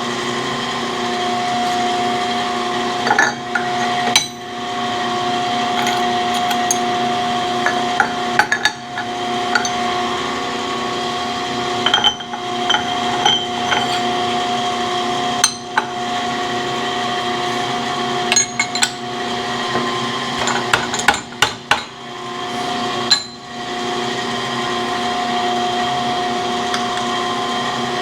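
Metal clanks, taps and knocks of steel parts and hand tools as an LS index plate is fitted to a cam grinder. A steady machine hum runs underneath throughout.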